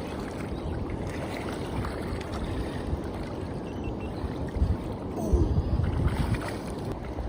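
Wind buffeting the microphone as a low rumble, with stronger gusts a little past halfway, over faint water.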